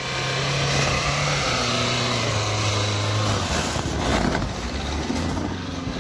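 Off-road 4x4's engine running hard under load as it drives through snow, getting louder over the first second. Its pitch drops in steps, with a steady hiss over it.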